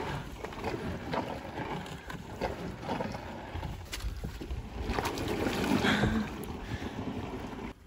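Wind buffeting the microphone over scrapes and knocks of a small boat's hull being shoved across mud, with a short grunt-like vocal sound about five to six seconds in.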